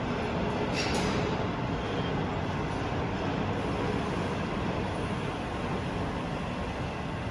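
Steady industrial machinery noise of a vacuum casting furnace installation running, a dense hum and rush, with a faint click about a second in.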